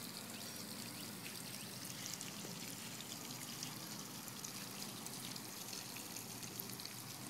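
Banzai Silly Splash Chameleon toy sprinkler, fed by a garden hose, spraying a low fountain of water that patters and trickles onto the grass: a steady, faint hiss with small scattered drip sounds. The spray is weak, not shooting up very high.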